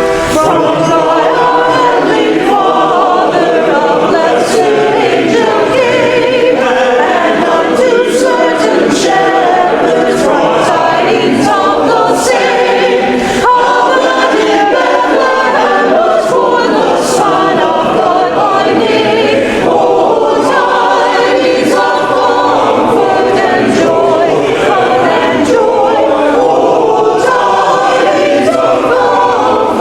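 Church choir singing, many voices together.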